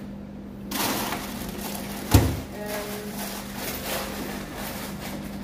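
Room noise with a steady low hum and one sharp, loud knock about two seconds in.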